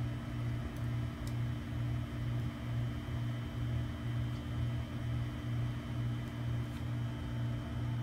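Small electric nail-wrap heater running: a steady fan hum with a low throb about twice a second.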